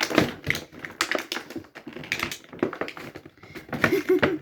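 Hard plastic action-figure packaging being pulled and pried at, making a run of irregular sharp clicks and crackles as the figure is worked against its tray.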